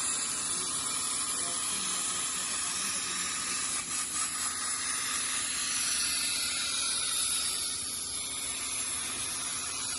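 Virgo Cut 100 plasma cutter on a CNC carriage, its arc hissing steadily as it cuts through thick steel plate.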